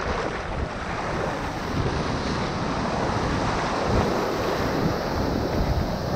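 Ocean surf breaking and washing up the beach, swelling about a second in, with wind buffeting the microphone.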